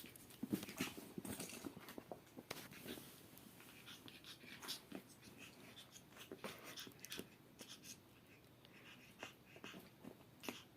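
Faint sounds of a Pekingese puppy close by: breathing and snuffling noises mixed with scattered small clicks and rustles.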